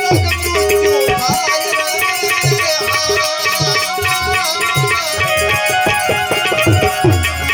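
Instrumental passage of Gujarati santvani devotional folk music: a melody line over a steady hand-drum beat, the low drum strokes bending in pitch.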